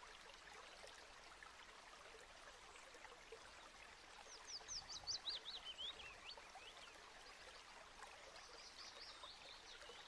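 Near silence: a faint steady hiss with a quick falling run of high chirps about four seconds in, and a fainter run of high chirps near the end.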